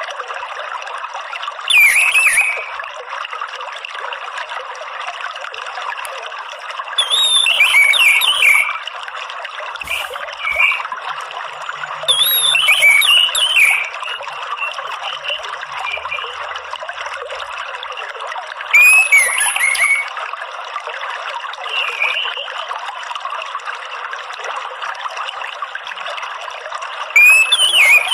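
Orange-headed thrush giving short, rapid twittering (ngeriwik) phrases, about six a few seconds apart, over steady trickling water.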